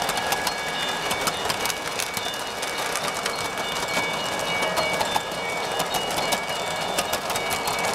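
Model train of boxcars rolling on three-rail track, wheels clicking steadily over the rails and joints, with a steady high whine from the running train.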